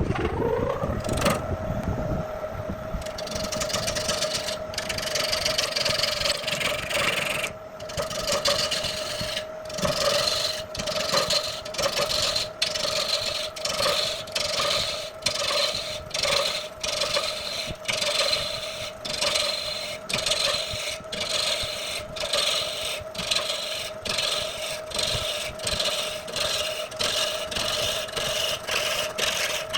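Wood lathe motor spinning up with a rising whine that settles to a steady hum. From about three seconds in, a turning tool scrapes and cuts the spinning wood in repeated strokes, roughly one a second.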